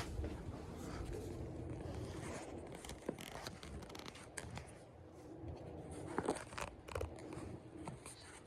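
Hunter Original ceiling fan running steadily at high speed in reverse, a low hum with the rush of moving air. Several sharp clicks and knocks break in, the strongest about six to seven seconds in.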